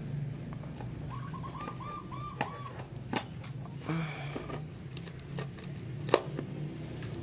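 Pocket-knife blade cutting and scraping through packing tape on a cardboard box, with scattered sharp clicks, the loudest about six seconds in. A bird chirps a quick run of about six notes between one and three seconds in, over a steady low hum.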